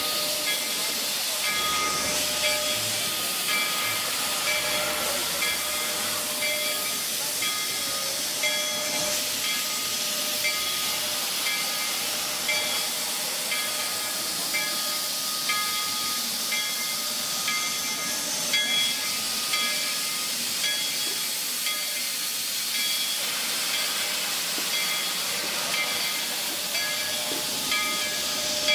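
Narrow-gauge Baldwin steam locomotive No. 340 hissing steadily as steam vents from around its front cylinders while it creeps forward. Short ringing tones recur through the hiss.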